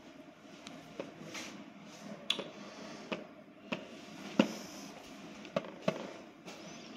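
Fingertip taps on a Hikvision video intercom monitor's touchscreen as a password is typed, about eight short, sharp clicks at irregular intervals over faint room hiss.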